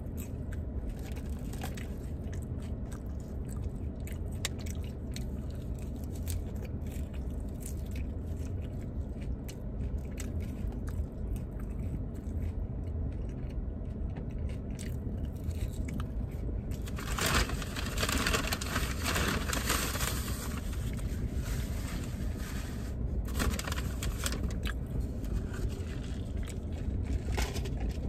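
Close-up eating of crispy fries with a fork from a plastic takeout container: crunching and chewing, with the fork clicking and scraping on the plastic. The scraping and rustling get louder for a few seconds about two-thirds of the way through, over a steady low hum.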